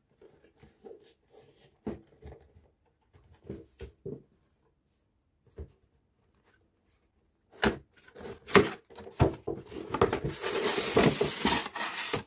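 Cardboard box being handled: scattered light taps and rubs at first, then from about seven and a half seconds in louder cardboard rustling. This ends in a sustained scrape of cardboard sliding on cardboard as the inner tray is pulled out of the box.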